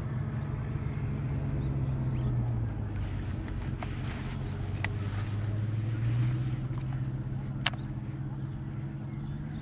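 Baitcasting reel being cranked in a steady retrieve: a low whirring hum that rises and falls slightly with the cranking speed, with a few light clicks.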